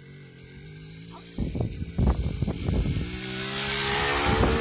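Small dirt bike engine running steadily at low revs, then revving up in a rising whine as the bike comes close, the loudest part near the end; irregular bursts of rushing noise from about a second and a half in.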